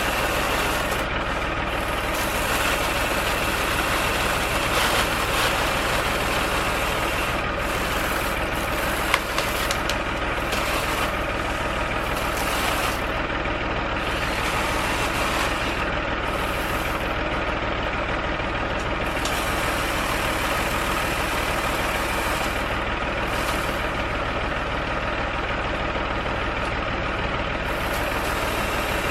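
An engine running steadily, with one sharp knock about nine seconds in.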